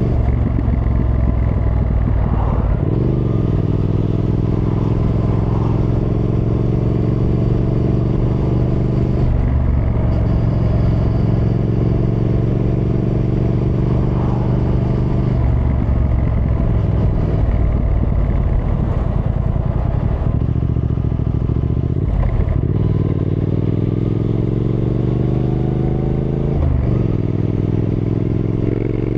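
Triumph Thruxton R 1200 parallel-twin engine under way, its note broken by a short dip at each gear change about six times, and climbing steadily as it accelerates near the end.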